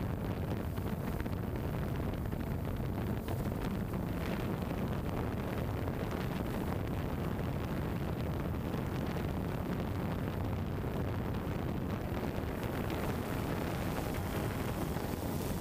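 DJI Phantom 2 quadcopter in flight, its motors and propellers making a steady rushing whir heard from the drone's own camera, with wind noise on the microphone.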